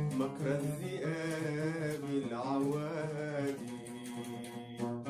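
Male voice singing a long, wavering melismatic phrase in Arabic over a plucked string accompaniment; the voice fades about three and a half seconds in, leaving the strings.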